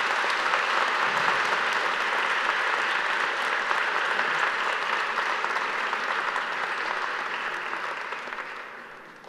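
Audience applauding: dense, steady clapping that fades away over the last second or so.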